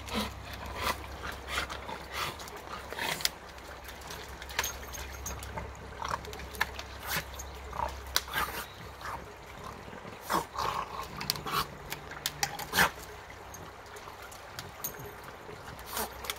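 French bulldog wading in a shallow creek: irregular splashes and sloshes as its paws move through the water.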